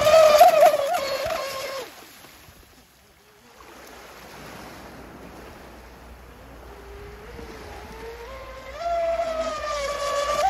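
Brushless electric motor of a Delta Force Cyber Storm RC speedboat whining at speed, its pitch wavering. The whine falls away about two seconds in, stays faint for several seconds, and comes back loud and rising about nine seconds in as the boat runs under power again.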